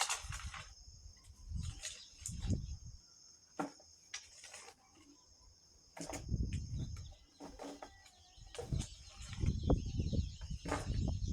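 Steady high-pitched insect chorus, with irregular low rumbles of wind buffeting the microphone and a few sharp knocks and scrapes.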